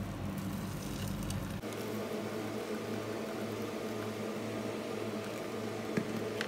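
A steady low hum that changes tone abruptly about a second and a half in, with a single soft click near the end.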